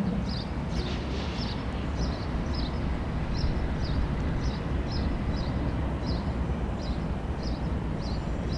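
Diesel locomotives of a CN light-engine consist running at low speed, a steady low engine rumble, with short high chirps repeating about twice a second over it.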